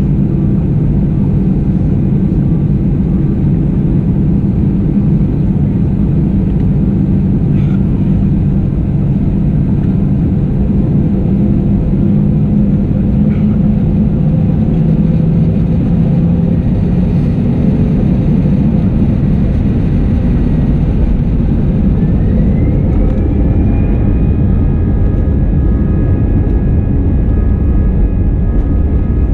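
Cabin noise of an Airbus A320-214 on the ground: a steady low rumble from its CFM56 engines and the airframe. About three-quarters of the way through, a whine rises and then holds steady as the engines spool up on the runway.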